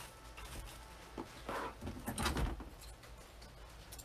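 Wired ribbon rustling as it is handled and looped into a bow, in a few short soft rustles, the loudest about two seconds in.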